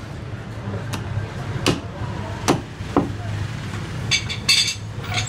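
Heavy meat cleaver chopping through a bone-in leg of meat on a wooden chopping block: four sharp strikes within the first three seconds, then a short metallic rattle near the end.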